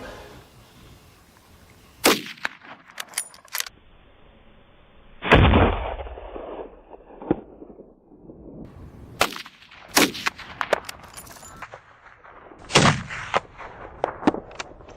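A series of gunshots from boar hunters' guns, about a dozen sharp reports at uneven intervals; the loudest comes about five seconds in with a long rumbling echo.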